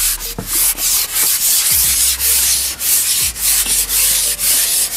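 Pole noise: a slipped microphone rubbing and scratching as the fishing pole is handled, a loud rough scrape repeating a few times a second.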